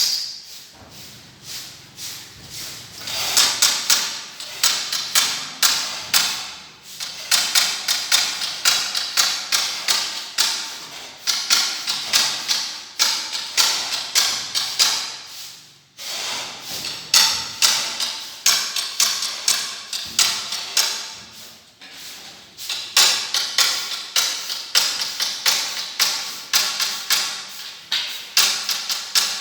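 Runs of sharp taps or knocks, about two or three a second, broken by a few short pauses.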